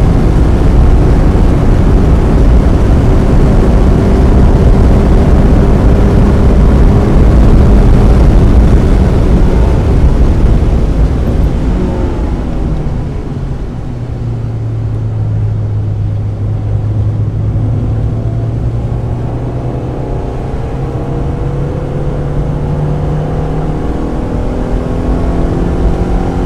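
1995 Mazda Miata's 1.8-litre four-cylinder engine under power on track, holding steady revs for about ten seconds, then dropping off to a lower, quieter note for several seconds, and rising again near the end as it accelerates. A steady rush of tyre and road noise runs underneath.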